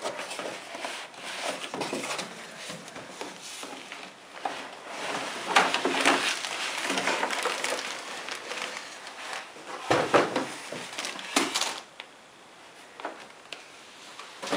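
Plastic packaging bags rustling and crinkling, with knocks and scrapes of packing pieces, as a monitor's accessories are unpacked by hand. There are louder bursts about six, ten and eleven seconds in, and it quietens near the end.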